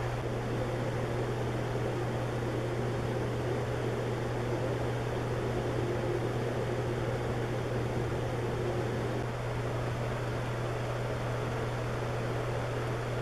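2005 Banvil Spinner 90 cm ceiling fan running on high speed, at roughly 300 RPM: a steady low motor hum under an even rush of moving air.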